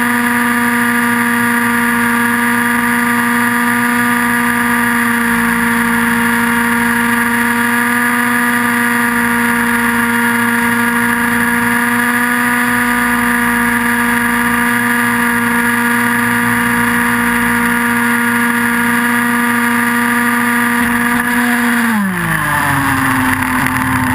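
Nitro glow engine and rotors of an Align T-Rex 700N RC helicopter running at a steady high-pitched whine in flight; about 22 seconds in the pitch drops quickly as the helicopter touches down and the engine is throttled back, the rotors winding down.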